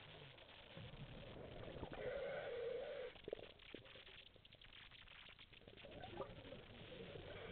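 A scuba diver breathing through a regulator underwater, exhaled air bubbling out through the exhaust valve with a wavering, bleat-like tone. One exhalation comes about two seconds in and another starts near the end.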